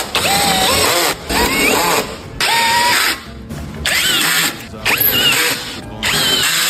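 Background music: a song with a high voice holding and sliding between notes over a full backing track.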